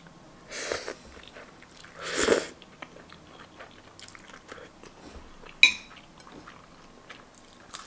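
Noodles being slurped, loudest about two seconds in, then chewing with small wet mouth clicks. A little before six seconds a metal spoon clinks down on the plate.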